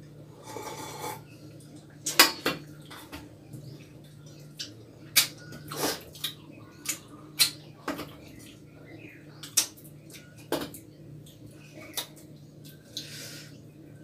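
Stainless steel plates and a small steel bowl clinking and knocking against each other, about a dozen sharp, irregular clinks.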